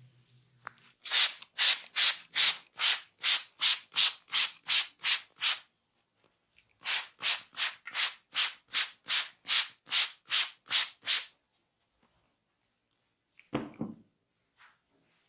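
Brisk rhythmic rubbing strokes, about three a second, in two runs of four to five seconds with a short pause between. A brief thump near the end.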